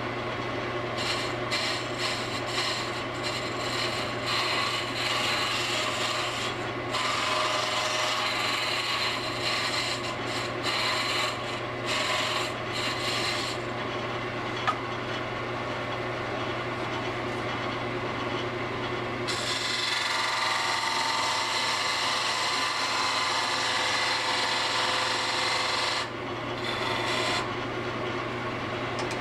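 Wood lathe running with a steady motor hum while a turning gouge cuts the spinning wood, a continuous scraping, shaving sound. The cut comes and goes in strength and is heaviest about two-thirds of the way through.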